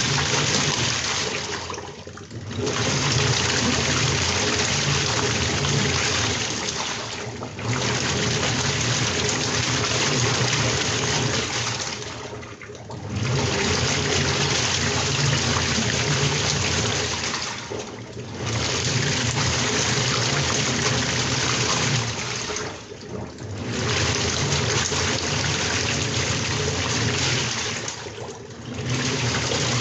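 Washing machine churning and sloshing water, with a low hum under the rushing water. The sound drops away briefly about every five seconds, then resumes.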